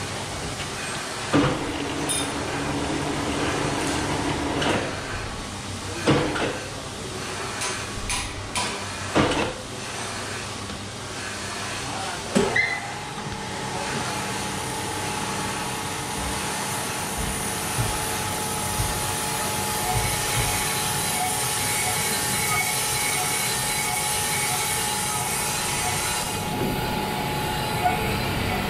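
Crankshaft grinding machine in a machine shop. Over the first dozen seconds several sharp metal knocks come as the crankshaft is set up for the next crank pins. From about 13 s in, the grinding wheel runs steadily against the turning crankshaft under coolant spray, a steady hum with a held tone and a bright hiss that cuts off near the end.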